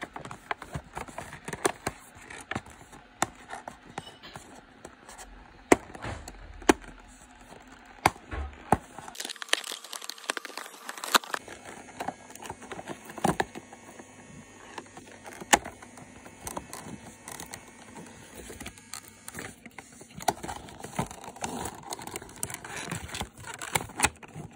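Hands opening and handling a cardboard figure box with a clear plastic insert: crinkling, rustling and tearing of card and plastic, with many irregular sharp clicks and snaps.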